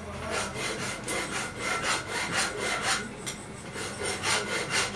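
Rhythmic back-and-forth rasping of a hand tool being worked, like filing or sawing, about three strokes a second, with a brief lull a little past the middle.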